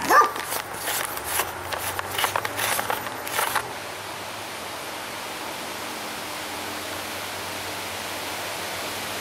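Clicks, scrapes and rattles of a camcorder being handled close to its microphone as the infrared lens filter is taken off, lasting about three and a half seconds. A dog barks once at the very start. After that there is a steady hiss.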